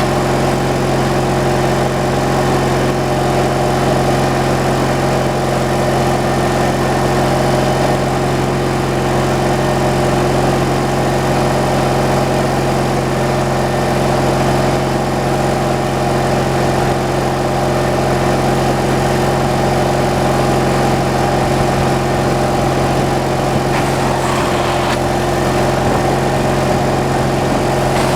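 Gasoline engine running steadily at a constant speed.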